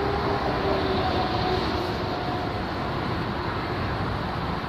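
Boeing 747 jet engines running at low power as the airliner taxis: a steady jet noise, with a faint whine that fades out in the first couple of seconds.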